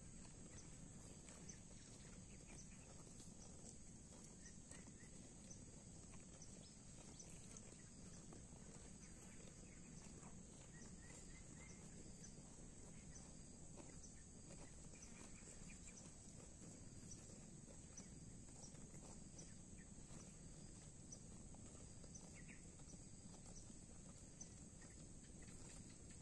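Near silence: faint open-field ambience, a steady high hiss with scattered faint ticks.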